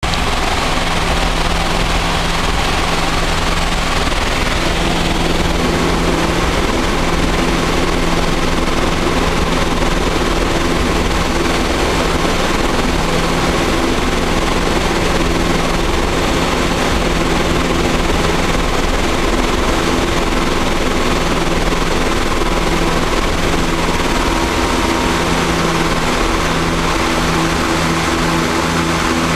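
Two Pratt & Whitney PT6A turboprop engines and propellers of a DHC-6 Twin Otter heard from inside the cockpit on a steep landing approach: a steady, loud drone with a low humming propeller tone and rushing air.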